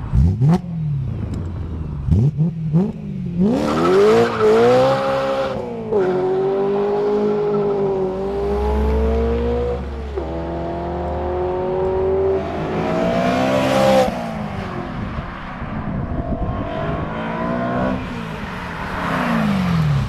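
BMW E92 M3's 4.0-litre V8 running through a Fabspeed Maxflo exhaust, revving and pulling hard. After a few quick blips the engine note climbs steeply, holds high, drops suddenly twice, and falls away near the end.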